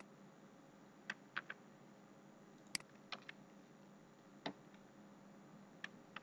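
Scattered clicks of a computer mouse and keyboard, about eight short, sharp clicks at irregular intervals over a faint hiss.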